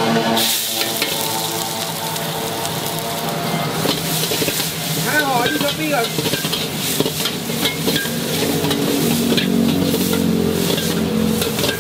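A hot wok sizzling steadily over a gas burner. From about halfway through, tofu and shallots fry in it while a metal spatula scrapes and taps against the wok in repeated sharp clinks.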